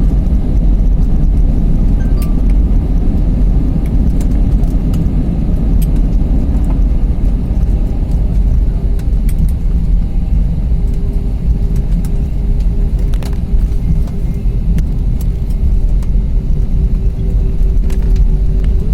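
Loud steady rumble of airliner cabin noise, with scattered light rattles and clicks. A faint steady whine joins about halfway through.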